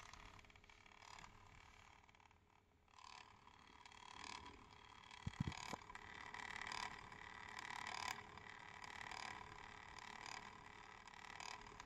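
Failing cooling fan of an Asus Vivobook S15 K5504VN laptop running, heard faintly at its vents: a wavering whir with a steady tone to it that swells about three seconds in. A single short click comes about five seconds in.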